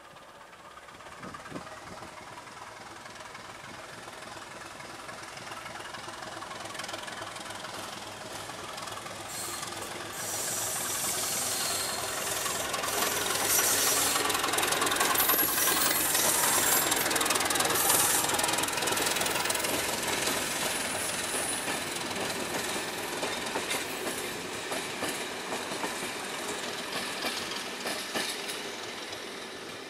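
A Class 749 'Bardotka' diesel locomotive passes at low speed with a passenger train, its diesel engine running under load. The sound grows louder as it approaches, is loudest as it passes about halfway through, then fades as it moves away. High-pitched wheel squeal is heard around the loudest part as the coaches roll over the curved tracks, along with clicking rail joints.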